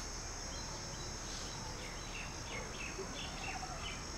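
Outdoor ambience of a steady, high-pitched insect drone, with short chirps repeating several times a second over it.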